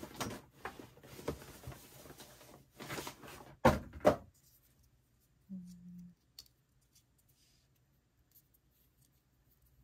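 Hands rustling and handling camera accessories and their packaging, with two sharp knocks about four seconds in, then a brief low hum and a few faint clicks.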